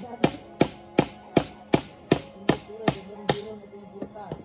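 Hammer blows on wood, a steady run of about nine sharp ringing strikes at nearly three a second, then two lighter taps near the end. Faint background music underneath.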